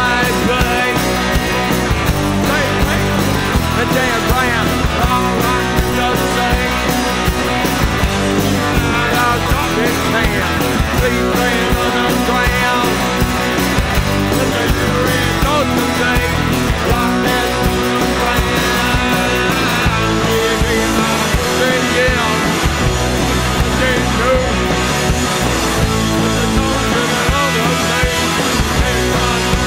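Live rock band playing loudly and without a break: drums and guitar under a man singing into a microphone.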